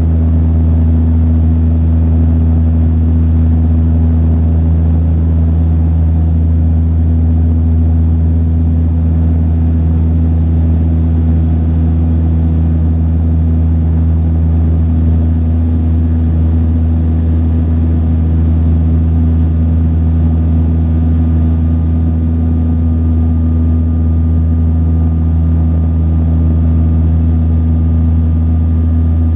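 Twin General Electric CT7-9B turboprops of a Saab 340B heard from inside the cabin: a steady, loud drone with a strong low propeller hum.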